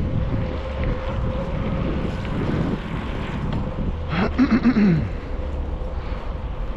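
Wind buffeting the microphone and tyre rumble of a bicycle rolling along an asphalt cycle path, with a steady hum underneath. About four seconds in, a brief, louder burst of several quick rising-and-falling sounds cuts through.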